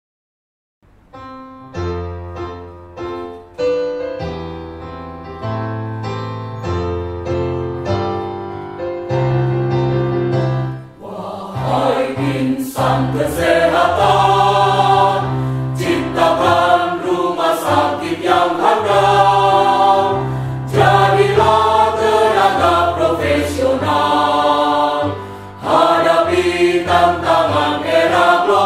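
A keyboard plays an introduction of held chords, then about eleven seconds in a mixed choir of men and women comes in singing a march with the accompaniment. It pauses briefly near the end and carries on.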